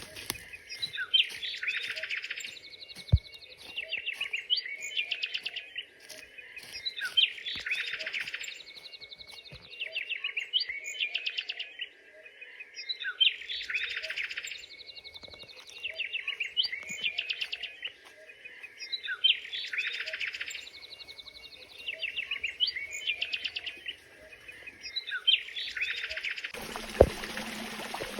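A songbird singing the same chirping phrase over and over, each song about two seconds long and repeated roughly every six seconds. Near the end a steady rush of flowing water starts.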